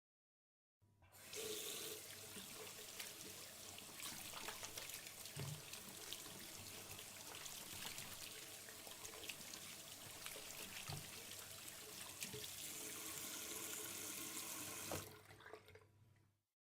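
Kitchen tap running water into a sink, a steady splashing rush with small clicks. It starts about a second in and stops near the end.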